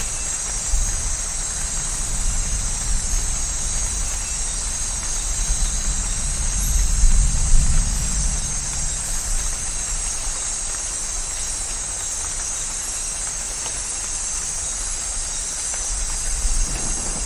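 Steady rain hiss with a low rumble of distant thunder that swells about six seconds in, peaks a second or two later and fades.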